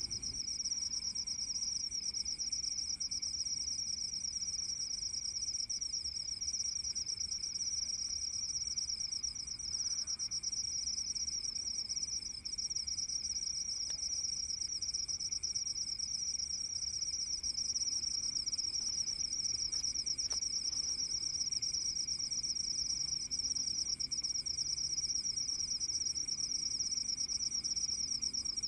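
Night chorus of crickets, a steady high-pitched trill that never breaks, with a fainter, lower trill underneath.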